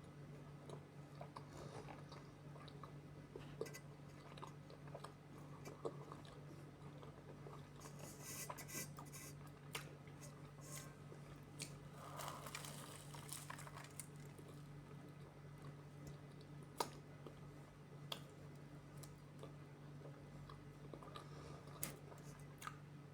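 Faint close-up chewing and crunching of food, with scattered sharp clicks, over a steady low hum.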